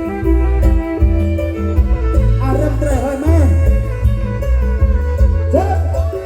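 Loud live folk music: a bowed fiddle over a heavy, steady drum beat. A wavering melody line slides up and down about halfway through and again near the end.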